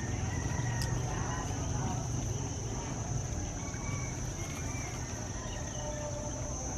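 Steady high-pitched insect drone over a low rumble, with a few faint short chirps and a single sharp click a little under a second in.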